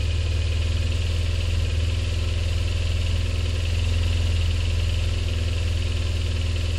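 A vehicle engine idling steadily, with a deep, even hum and a fast regular pulse from its firing.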